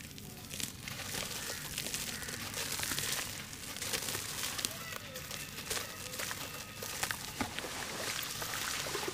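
A gritty chunk of sand-and-charcoal-ash mix crumbling in bare hands and falling into a tub of wet ash slurry: continuous crackling and gritty trickling with many small clicks, then wet squishing as the hands work into the paste near the end.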